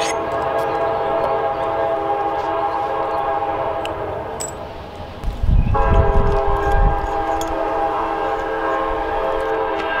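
A train passing nearby: a steady drone of several held tones, interrupted just after halfway by a brief low rumble.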